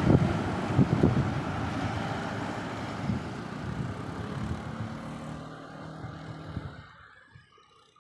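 A heavy road vehicle's engine passing close and pulling away. Its sound fades steadily over about seven seconds until it is nearly gone.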